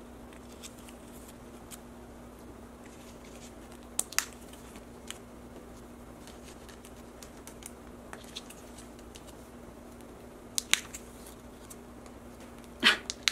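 Photocards being slid into clear plastic binder pocket pages: faint rustling with a few sharp plastic clicks, the loudest a pair about four seconds in and another pair about ten and a half seconds in, over a steady low hum. A short louder noise comes right at the end.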